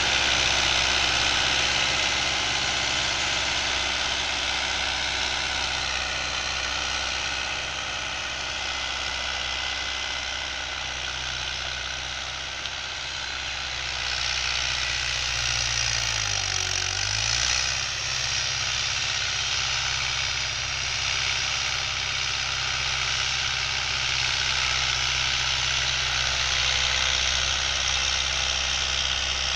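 Fiat 640 tractor's four-cylinder diesel engine running steadily under load while pulling a tine cultivator. A little past halfway its note dips briefly and comes back up.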